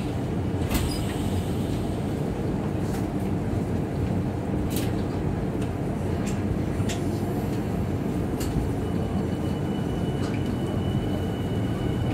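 Running sound inside a Yokohama Minatomirai Railway Y500-series motor car as the electric train pulls out of a station and picks up speed: a steady rumble of wheels and traction motors with a few sharp clicks. A thin, high steady tone joins about halfway through.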